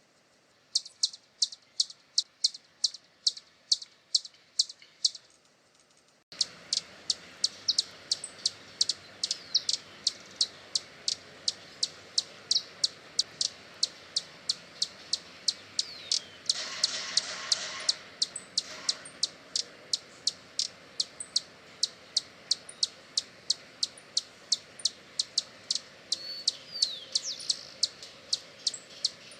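Hummingbird giving a steady series of short, high chip calls, about three a second. About six seconds in, a hiss of background noise comes in under the calls, and there is a brief burst of noise a little past the middle.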